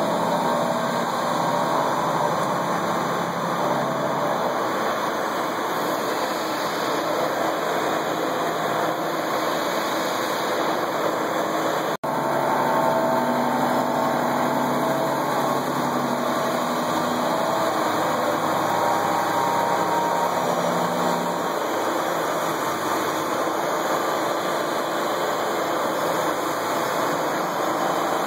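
Milling machine with an Avantec cutter rough-milling a crankshaft half-shell: steady machining noise of spindle and cutting, with a low hum beneath, broken once by a momentary dropout near the middle.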